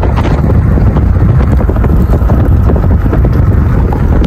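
Strong thunderstorm wind buffeting the microphone: a loud, continuous low rumble of gusts with no let-up.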